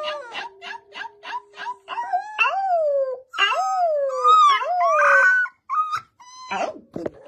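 Husky puppy howling: a quick run of short yips, then about three drawn-out howls that each fall in pitch, and a few short calls near the end.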